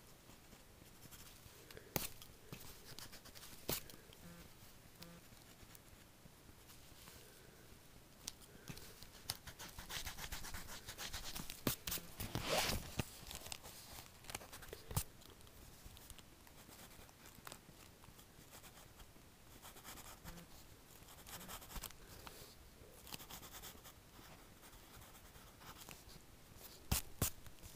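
Pencil sketching on spiral-bound notebook paper: faint scratchy strokes and rubbing that come and go, densest around the middle, with a few sharp clicks.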